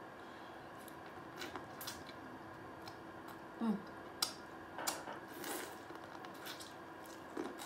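Close-miked eating of corn on the cob coated in seafood boil sauce: scattered wet crunches and mouth sounds as the kernels are bitten off, with two short falling hums from the eater, over a faint steady hum.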